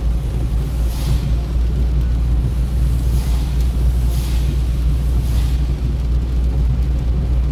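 Steady low rumble of a car driving on a wet road, heard from inside the cabin. The windshield wipers swish across the rain-wet glass several times.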